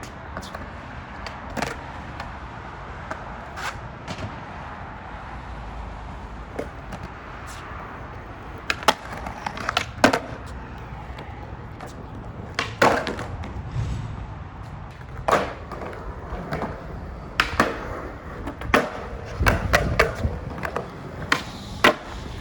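Skateboard rolling on urban wheels over pavement, with a series of sharp clacks from the tail popping, the trucks hitting and the board landing. The clacks come more often and louder in the second half.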